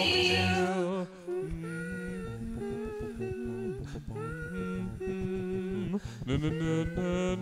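A person humming a tune, holding notes and stepping from pitch to pitch, with brief pauses for breath.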